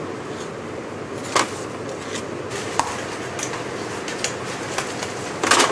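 Commercial kitchen sounds: a steady hum of ventilation with scattered knocks and clatters of utensils and pans. The loudest is a short clatter near the end.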